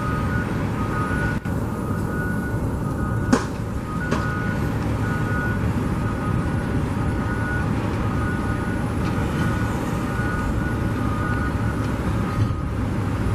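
A heavy truck's engine running with its backup alarm sounding a string of repeated high beeps over a steady low rumble.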